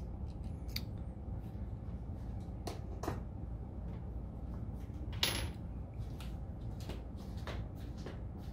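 Scattered small clicks and knocks of metal hand tools being handled and set down on a workbench, among them a digital caliper laid down, with one sharper clack about five seconds in. A steady low hum sits underneath.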